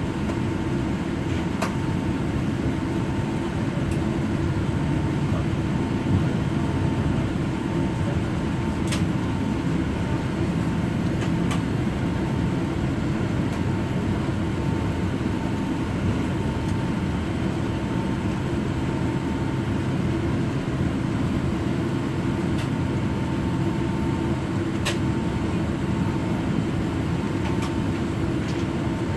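Inside a Boeing 787 Dreamliner's cabin while it taxis: a steady low rumble of the engines at taxi power and the wheels rolling on the taxiway, with a faint steady hum. A few light clicks are scattered through it.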